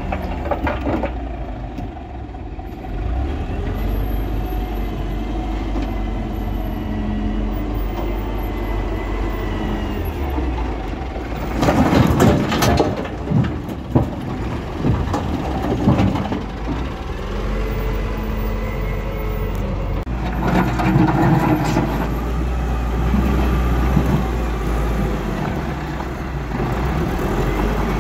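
Caterpillar wheel loader's diesel engine running under load as it works. About twelve seconds in, a bucketload of large rocks crashes and rumbles into the steel body of a tipper truck for a few seconds, and a second, shorter stretch of rock rattling follows later.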